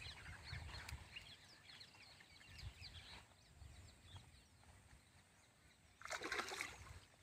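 Faint outdoor ambience with many small, quick bird chirps in the first few seconds, and a brief rush of noise about six seconds in.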